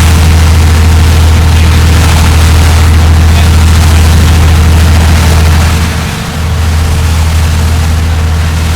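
A boat's engine running steadily with a deep, constant hum, dipping briefly about six seconds in and then going on a little quieter.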